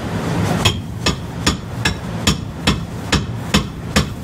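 Hand tool striking in an even rhythm, about two and a half sharp hammer-like strikes a second, each with a short ring, over a low steady rumble.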